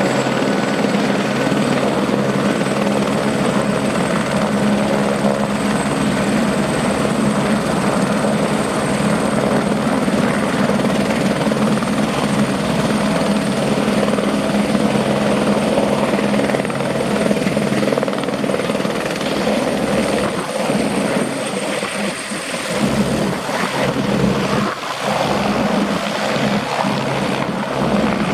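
Eurocopter AS350 B3 AStar helicopter running, with its single turboshaft engine giving a steady high whine over the rotor noise. The low rotor sound turns choppier and more uneven in the last third.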